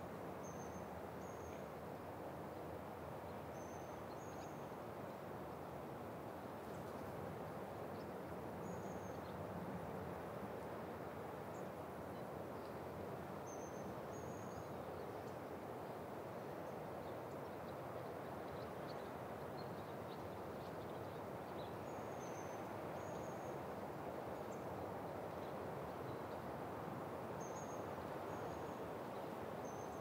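Wind blowing steadily through pine trees, an even soft rush. Short high bird chirps come in twos and threes every few seconds.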